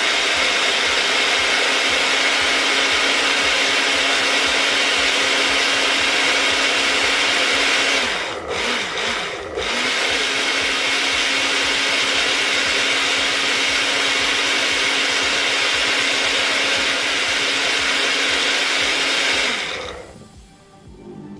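Personal single-serve blender running steadily as it blends a milkshake, its cup held down on the motor base. The motor dips twice briefly about eight seconds in, runs on, and stops shortly before the end.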